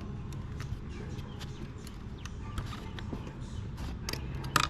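Scattered light clicks and knocks of hand tools working a fastener on a three-wheeler's wheel, with one sharper knock near the end, over a steady low hum.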